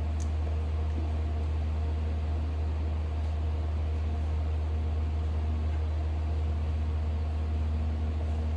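Steady low mechanical hum with a faint even hiss, unchanging.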